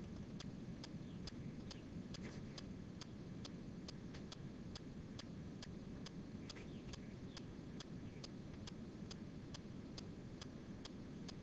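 Faint, even ticking, about three ticks a second, over low steady background hiss.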